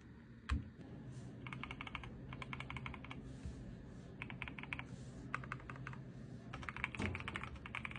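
Typing on a Qwertykeys QK100 custom mechanical keyboard: several short runs of quick keystrokes with brief pauses between them, after a single knock about half a second in.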